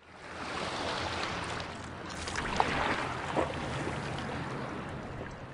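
A steady rushing noise, like wind or distant surf, fades in from silence, with two faint brief sounds about two and a half and three and a half seconds in.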